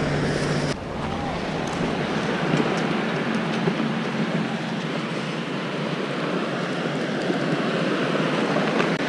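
Steady wash of small waves spreading over a flat sandy beach as the tide comes in.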